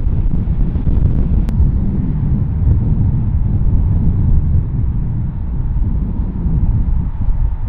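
Low, steady rumble of airliner jet engines, mixed with wind buffeting the microphone.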